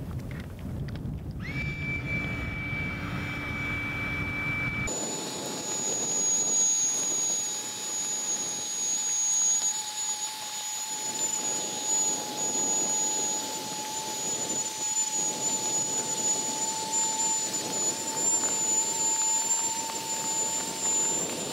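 Small electric air pump inflating a packraft, running with a steady high whine over a rushing hiss. Its note changes about five seconds in, then creeps slightly higher near the end as the raft fills and firms up.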